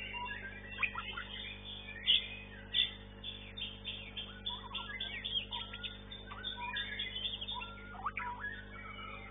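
White-rumped shamas (murai batu) singing a fast, varied song of chirps, whistles and quick sliding notes, over a steady low hum.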